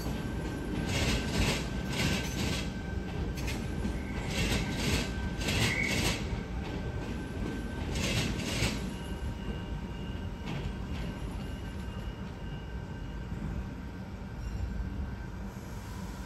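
Tangara electric suburban train rolling over pointwork, its wheels clacking over the crossings in irregular clusters for the first half, with a faint wheel squeal over a steady rumble. The clacking stops about nine seconds in and the rumble eases off.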